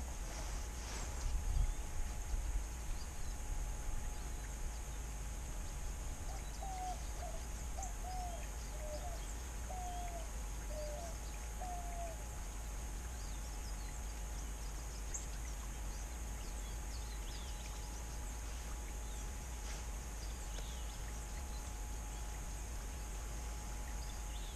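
Quiet outdoor ambience with a steady hiss and a few soft knocks about a second or two in. From about six seconds in, a distant bird gives a run of about seven short, low, slightly falling calls over some six seconds.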